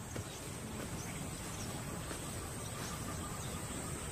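Outdoor bush ambience: a steady high-pitched insect drone over a low rumble, with a few faint ticks.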